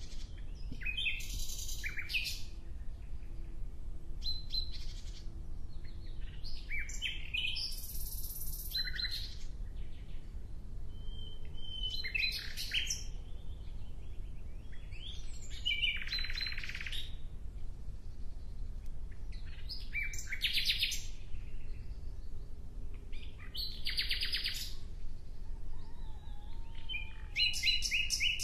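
A songbird singing short phrases of fast trills and high notes, repeated every three to four seconds.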